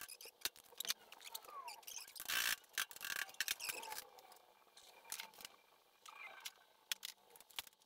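Faint scattered clicks and taps, with a brief scrape about two and a half seconds in: small handling noises.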